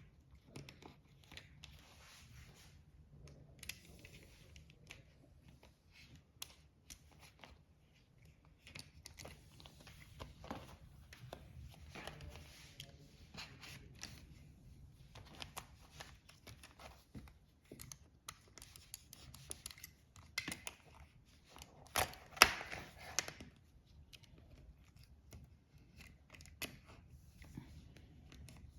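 Rubber fridge door seal being handled and pulled at the door: irregular scraping, tearing sounds and small clicks, with the loudest burst a little past two-thirds of the way through.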